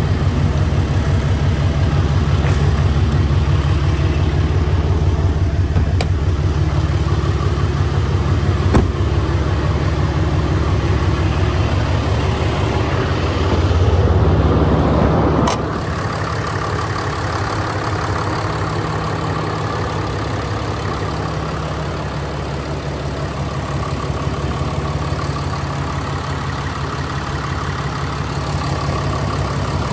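6.7-litre Cummins inline-six turbo diesel idling steadily. It swells briefly about halfway through, then carries on slightly quieter and even, with a single sharp click about nine seconds in.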